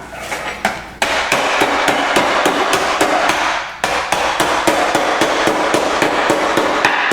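Graham crackers in a reusable bag being pounded with a rolling pin to crush them into crumbs: rapid, regular blows starting about a second in, with a brief pause a little past halfway.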